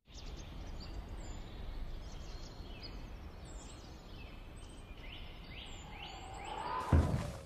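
Outdoor ambience: a steady low rushing noise with short, high chirps scattered through it. About seven seconds in, one sudden loud thump with a whoosh.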